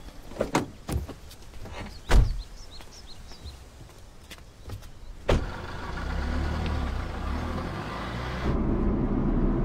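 A few light knocks, then a car boot lid slammed shut about two seconds in and a car door shut about three seconds later. After that the Tata Indigo eCS's engine runs with a low rumble, growing louder near the end as the car moves off.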